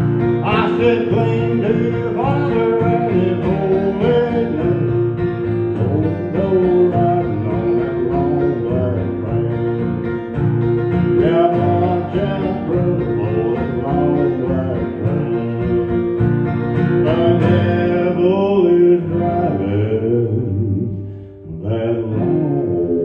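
Live country music: a steel-string acoustic guitar strummed along with an electric bass guitar, and a man singing over it. The playing breaks off briefly near the end, then picks up again.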